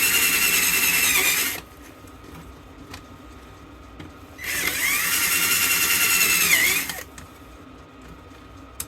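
Electric drill drilling out parts of a metal fire alarm, in two bursts of high steady whine of about two to three seconds each. The second burst dips in pitch as it winds down, and a few small clicks follow near the end.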